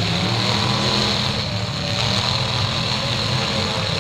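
Engines of several demolition derby cars running and revving together, a loud steady din with pitches that rise and fall as the drivers work the throttles.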